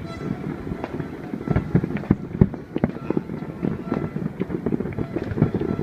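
Fireworks going off in a rapid, irregular string of bangs and crackles.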